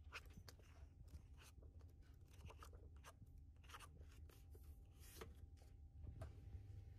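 Faint paper rustles of paperback pages being flipped, then soft scrapes and taps of a book being slid back among others on a shelf, over a low steady room hum.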